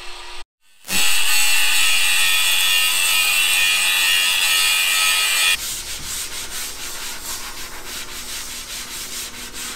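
DeWalt angle grinder cutting through aluminium angle: a loud, steady high-pitched grinding that stops abruptly about five and a half seconds in. Then the cut aluminium edge is rubbed down by hand in quick, repeated strokes to deburr it.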